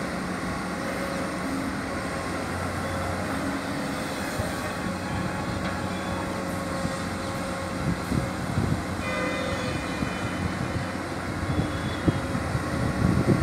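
Komatsu PC210 hydraulic excavator working: its diesel engine runs steadily under load as the machine digs, swings and dumps soil, with a few knocks near the end.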